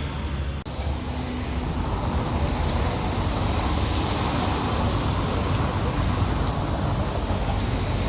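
Steady traffic noise, a continuous rumble and hiss of passing vehicles, with a brief dip about half a second in.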